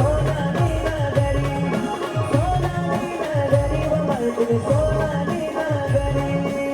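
Live band playing folk music for a Kanbai procession: a wavering lead melody over a steady drum beat of about two strokes a second, with no words sung.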